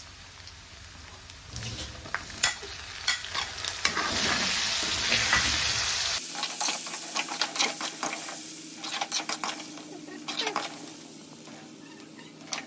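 Pork pieces frying and sizzling in hot oil, while a ladle stirs and turns them, scraping and clicking against the pan.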